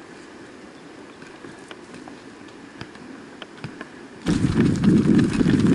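Mountain bikers hiking their bikes up a rocky trail: scattered light clicks and crunches of footsteps and bike parts. About four seconds in, a sudden much louder, dense rumble of a mountain bike rolling over a rough dirt trail.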